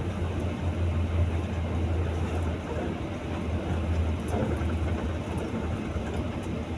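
Steady engine drone and road rumble heard inside the cabin of a moving bus, with a constant low hum.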